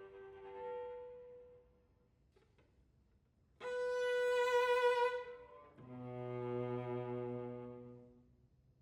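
Solo cello playing long, separate bowed notes with pauses between: a note dying away, a silence, a loud bright high note, then a lower held note that swells and fades near the end.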